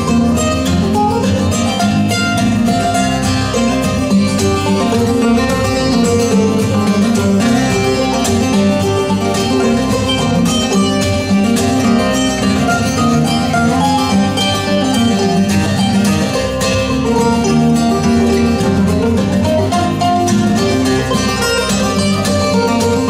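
Instrumental break of a recorded song, led by plucked guitar over bass, played loud over a pair of Wilson Audio WATT/Puppy 5.1 loudspeakers in a room.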